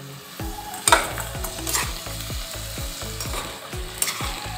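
Steel slotted spatula stirring freshly added diced potatoes and peas into hot oil in a kadhai: a steady sizzle with sharp scrapes and clinks of the spatula against the pan. The loudest clink comes about a second in.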